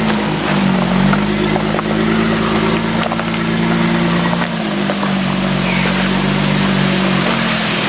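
A 4x4's engine running while driving, a steady drone whose pitch drops and climbs again a few times as the revs change, over road noise.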